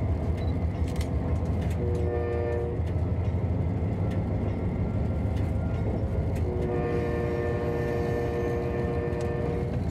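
Multi-chime horn of an Amtrak diesel locomotive heard from its cab: a short blast about two seconds in, then a long blast from about six and a half seconds that runs nearly to the end. It sounds over the steady low rumble of the engine and wheels, as a warning for the grade crossing just ahead.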